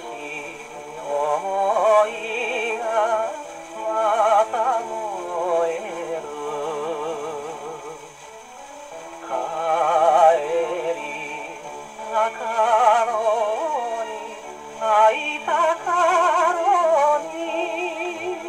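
Wind-up acoustic gramophone playing a 1950 shellac 78 rpm record of a Japanese popular song through a soft-tone steel needle. A male voice sings with a strong vibrato in phrases, with instrumental accompaniment filling the short gaps between them.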